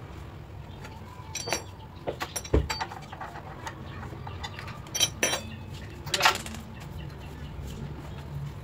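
Scattered metallic clinks and knocks of a wrench working on the starter motor's mounting bolts, over a low steady hum.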